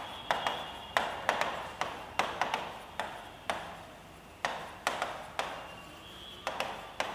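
Pen tapping and sliding on a writing board as words are written: irregular sharp taps, often two or three close together, each with a short ringing decay, and a faint brief squeak now and then.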